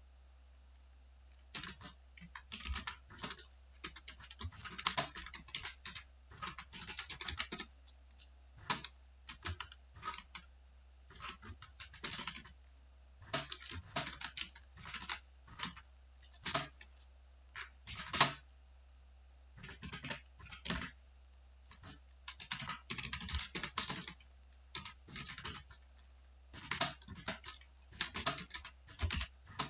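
Computer keyboard typing: keys clicking in quick irregular runs, broken by short pauses.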